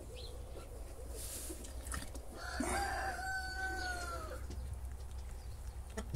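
A rooster crowing once, one drawn-out call of under two seconds that drops in pitch at the end, over a low steady hum.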